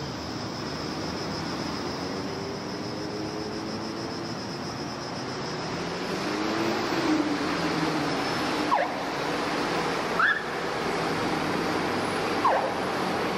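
Steady city street traffic and bus engine noise heard from the open top deck of a sightseeing bus, with an engine note rising and falling around the middle and three short squeaks in the second half.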